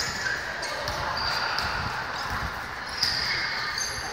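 Basketball game play: the ball bouncing on the court with repeated thuds, short high squeaks of sneakers, and background voices of players and spectators.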